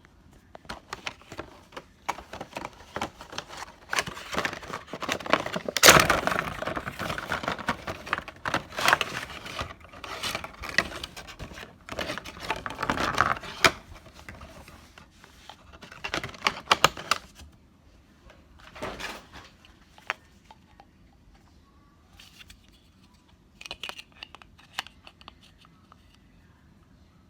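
Toy figure packaging being opened by hand: cardboard and plastic crinkling and tearing, with clicks and rustles. It is busy and loudest in roughly the first half, then thins out to scattered short rustles and clicks.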